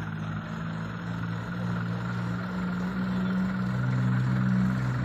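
Diesel truck engine running at low speed as the loaded truck creeps forward, its note shifting and growing louder about three and a half seconds in.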